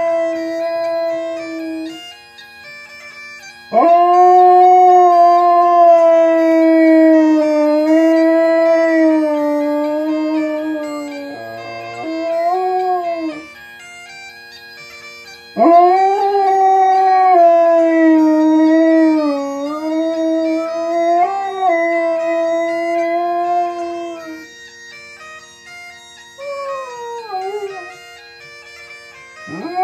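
Scottish terrier howling along to bagpipe music playing from a television. Its long wavering howls each start with a sharp upward swoop and last several seconds, with pauses between them. The steady drone of the pipes runs underneath.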